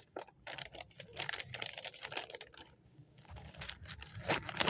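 Irregular crackles and rustles of paper and small sticks as a small fire catches, with a few louder crackles near the end.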